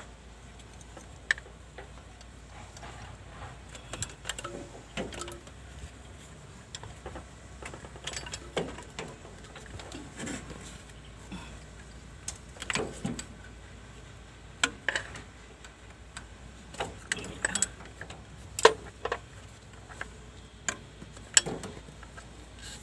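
Irregular metallic clinks, taps and knocks of hand tools and engine parts being handled, scattered one or two at a time over a low steady background.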